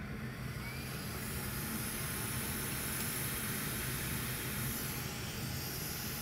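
Hot air rework station blowing a steady hiss of air over a circuit board. The hiss builds over the first second or two.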